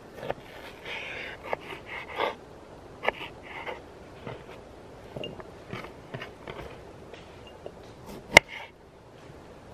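Knife cutting vegetables on a cutting board: irregular taps and scrapes, with one sharp knock near the end.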